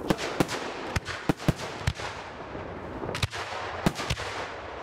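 Aerial fireworks display: a rapid, irregular string of sharp bangs from bursting shells over continuous crackling.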